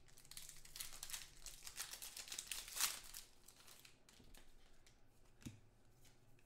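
Shiny plastic trading-card pack wrapper being torn open and crinkled by hand for about three seconds, loudest near the end, followed by quieter handling of the cards and a single click.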